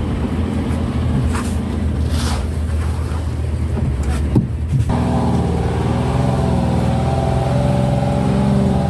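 Fishing boat engine running steadily, with a few short knocks in the first half. About five seconds in the engine note changes abruptly to a steadier, evenly pitched hum.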